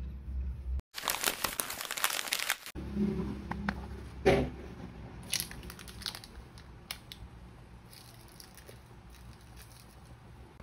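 Small clear plastic bags crinkling as they are handled on a table. The crinkling is loudest in a dense burst about a second in, followed by scattered lighter crackles and taps, with a knock around four seconds in.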